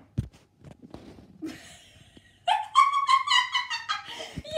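A few faint clicks of wooden Jenga blocks settling after the tower's fall, then about two and a half seconds in a child's high-pitched squealing, broken into quick repeated pulses.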